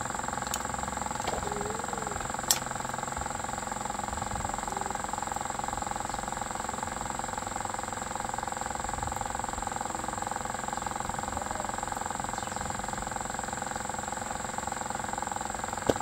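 Steady machine hum with a constant high whine over it, and two sharp clicks, one about two and a half seconds in and one near the end.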